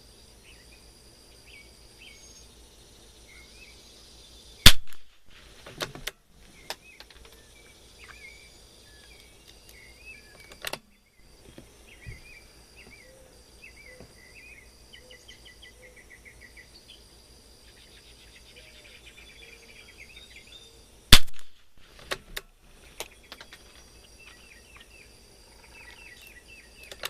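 Two .22 LR rimfire rifle shots from an Anschutz 54, about sixteen seconds apart, each followed by a few quieter clicks. Birds chirp and insects trill steadily behind them.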